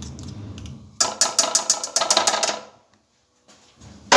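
Kitchen utensils clinking and scraping against a bowl in a rapid run of sharp clicks, broken by a moment of dead silence and ending in a sharp knock.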